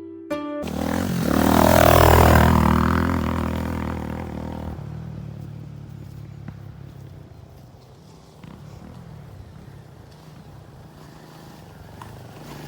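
A motor vehicle passing by: its engine swells to a peak about two seconds in, then fades away, leaving a low rumble with a few faint ticks.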